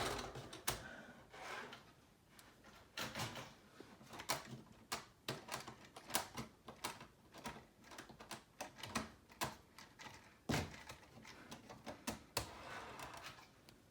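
Irregular light clicks and knocks from hand-handling model-train pieces, a few a second at uneven spacing.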